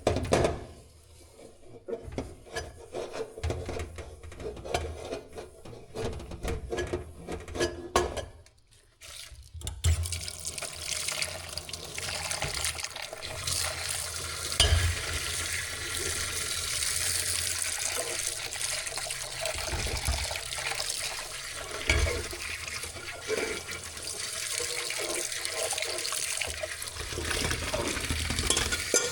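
Dishes and utensils clinking and knocking for about ten seconds, then water running steadily from a kitchen tap, with a few knocks now and then.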